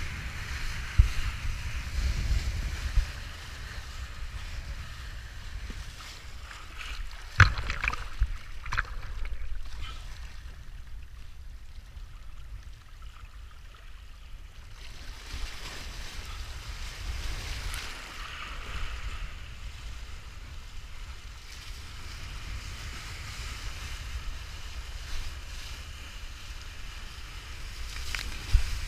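Wind buffeting the action-camera microphone over the hiss of water rushing and spraying under a kiteboard riding across choppy water. A few sharp slaps of the board on the chop come about seven and a half seconds in and again near the end.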